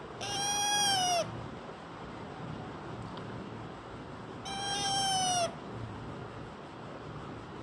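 Two long meow-like calls, each about a second, held at a steady pitch that drops a little at the end, the second about four seconds after the first.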